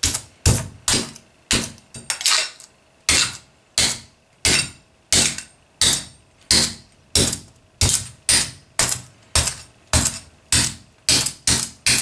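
A hand axe striking a mail-and-steel-plate armored gauntlet over and over, about two blows a second. Each blow is a sharp metallic clank with a brief ring. It is a damage test of the gauntlet, and the blows are scratching and denting its plates.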